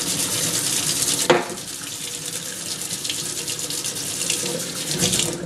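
Tap water running into a stainless steel sink and splashing over a makeup sponge being squeezed and rinsed in the stream. A brief sharp sound about a second in.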